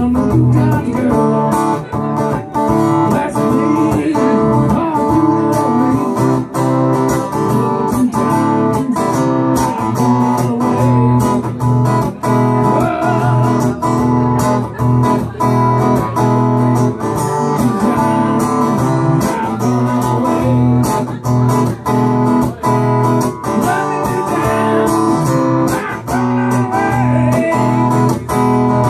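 Acoustic guitar strummed in a steady rhythm, amplified through a PA, with quick repeated strokes over sustained chords.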